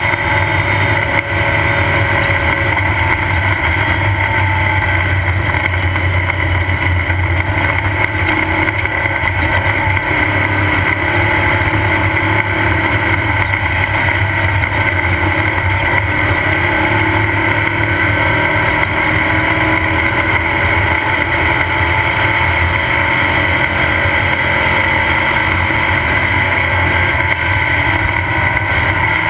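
Off-road race car running at race speed, heard onboard: a loud, steady engine drone mixed with rushing noise, with no let-up.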